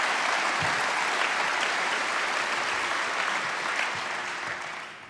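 Audience applauding steadily, the clapping thinning and dying away near the end.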